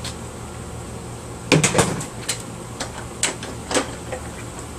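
Plastic parts of a small vacuum cleaner being handled during disassembly: a quick cluster of knocks and clatter about a second and a half in, then a few single clicks.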